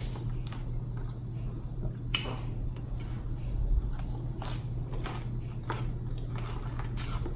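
A person chewing and biting a mouthful of food, with a few sharp clicks of a fork against a plate.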